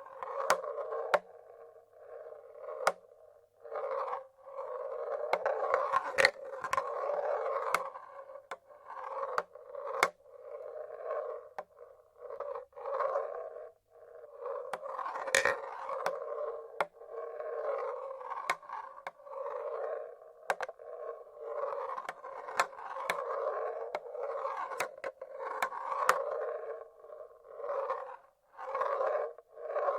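Marbles rolling along the tracks of a wooden marble-run machine: a hollow rolling sound that swells and fades every second or two, broken by sharp clicks as marbles drop and knock together.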